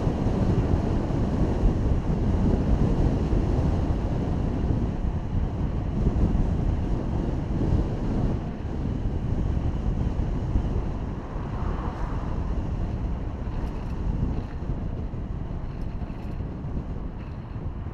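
Wind buffeting the microphone of a camera mounted on a moving bicycle: a steady low rumble that eases slightly about halfway through.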